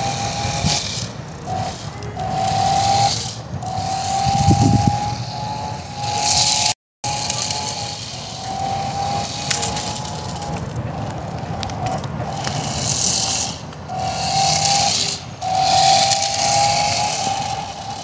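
RC drift car's motor whining in repeated throttle bursts, each rising slightly in pitch and stopping between bursts, with the tyres hissing and scrubbing on the surface. The sound cuts out briefly about seven seconds in.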